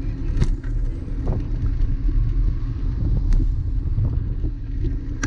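Steady low rumble of a bicycle rolling along a wet paved cycle path, with a few short knocks or rattles, about half a second, a second and a quarter, and three seconds in.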